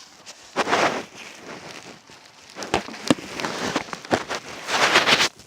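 Slime being poked and stirred: wet squelching with sharp little clicking pops, coming in several louder bursts.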